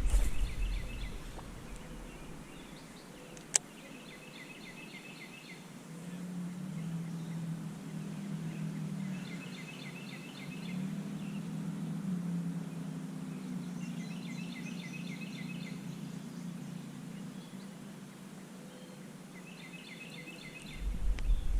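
A songbird repeating a short phrase of rapid high notes about every five seconds, over a faint steady low hum, with one sharp click a few seconds in.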